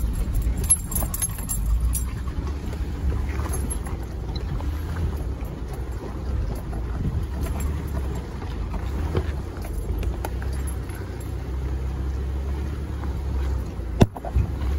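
Off-road 4x4 crawling slowly over a rocky trail, heard from inside the cab: a steady low engine rumble with scattered clicks from rocks and the body, and one sharp knock near the end.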